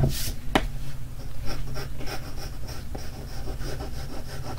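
A hand sweeps across a sheet of paper at the start, then a graphite pencil sketches on it in a run of short, light scratching strokes.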